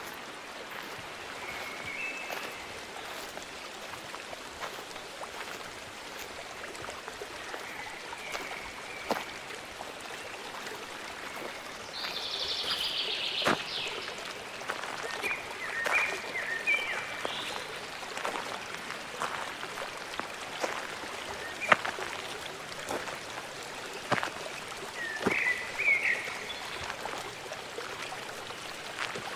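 Nature ambience: the steady rush of a stream, with birds chirping every few seconds and scattered sharp clicks.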